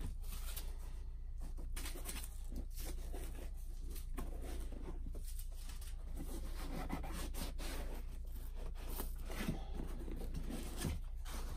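Hands handling a cardboard box and its foam insert: foam scraping and rubbing against the box walls, with scattered light taps and knocks, over a steady low hum.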